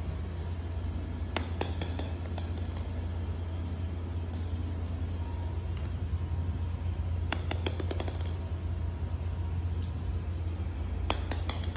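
Small plastic ball bouncing and clattering on a hard tiled floor, in three short runs of quick clicks, over a steady low hum.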